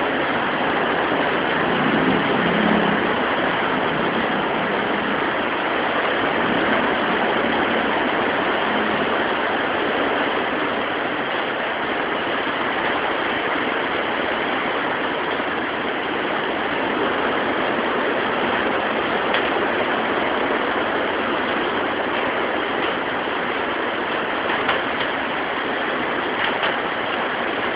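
Heavy tropical downpour: a steady, dense hiss of pouring rain that holds unchanged throughout.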